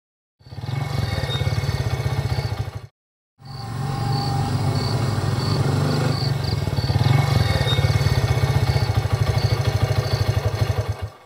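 Motorcycle engine running as the bike rides along, cut off abruptly about three seconds in; after a short silent gap the engine is heard again, running steadily until it cuts off near the end.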